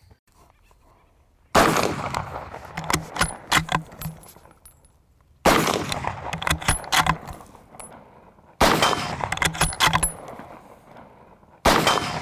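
Four shots from a Krag-Jørgensen bolt-action rifle in .30-40 Krag, about three to four seconds apart, the first about a second and a half in. Each shot is followed by a quick run of sharp metallic clicks as the bolt is worked and the empty case is thrown out.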